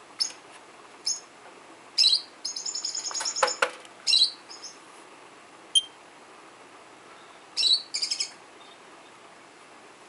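Lovebird chirping: short, sharp, high chirps every second or two, with a quick run of rapidly repeated chirps about two and a half seconds in and another cluster near the end.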